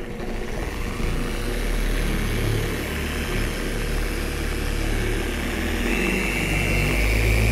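Voxer dual-action (roto-orbital) polisher running, its foam pad working refining compound over a car's clear coat: a steady motor hum that builds over the first second. A higher whine joins about six seconds in.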